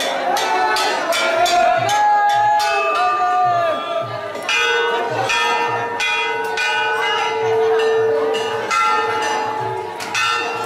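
Hanging brass temple bells rung over and over by a crowd of devotees, several bells clanging at once in a quick, irregular stream of strokes with the ring of each hanging on between them.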